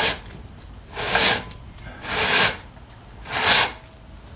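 Saw chain on a Bluemax 22-inch chainsaw bar being pulled around the guide bar by a gloved hand in four rasping strokes about a second apart. This is a hand check of chain tension just after the retaining nuts were tightened; the chain feels a little tight but still moves.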